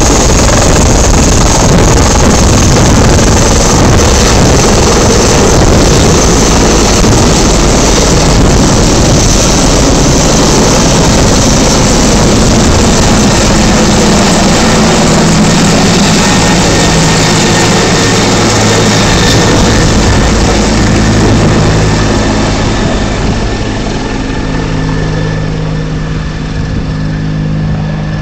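Agusta-Bell 412 twin-turbine helicopter lifting off close by: loud rotor and turbine noise with a high turbine whine. It then climbs overhead and flies away, the sound fading from about three quarters of the way in.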